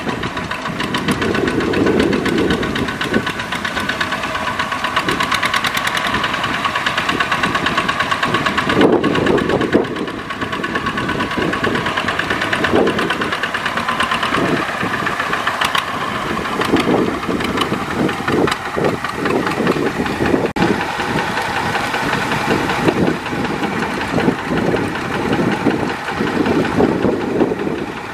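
Single-cylinder diesel engines of two-wheel walking tractors running under load as they drive through deep mud, with a rapid, even knocking beat that rises and falls.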